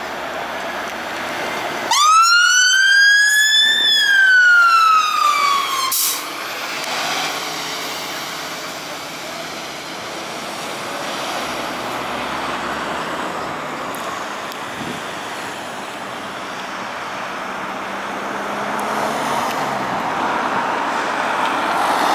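Scania P280 rescue pump fire engine's siren giving a single wail about two seconds in, rising in pitch for about two seconds, falling for two, then cutting off. Before and after it, a steady rumble of the truck's diesel engine and street traffic.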